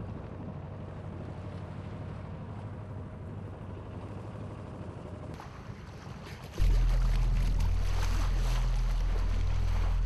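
Low rumble of a boat's engine, with a hiss of water joining about five seconds in. About six and a half seconds in, a loud, deep droning note of background music starts suddenly and holds.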